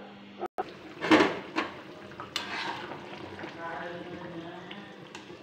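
A utensil knocking and scraping against a metal kadhai as jackfruit curry is stirred. There are two sharper knocks about one and two and a half seconds in, with lighter clicks between them.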